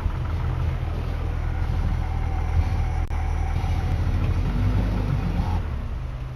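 A motor vehicle's engine running steadily with a low hum, with a faint click about halfway through.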